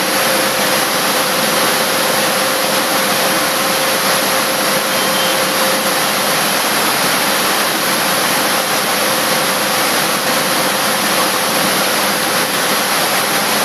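Loud, steady rushing noise of factory machinery, with a faint steady hum running through it.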